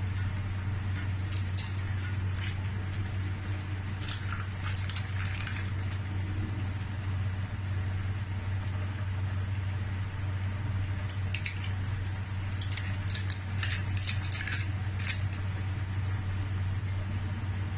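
Utensil clinks and scrapes against a cooking pot in several short flurries, over a steady low hum.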